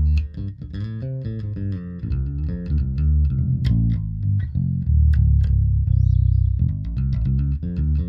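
Electric bass plucked with the fingers, played through a small 100-watt hybrid bass combo with one 10-inch speaker and a tweeter and picked up by a microphone in the room. A run of quick notes with crisp string attacks, then a couple of held low notes about five to six and a half seconds in.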